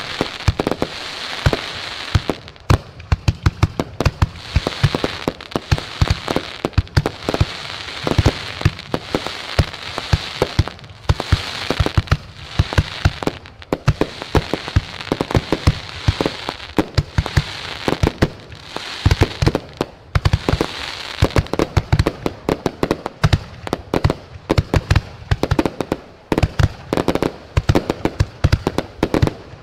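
Fireworks going off in a dense, continuous barrage: many sharp bangs and crackles in quick, irregular succession, several per second, over a steady crackling hiss.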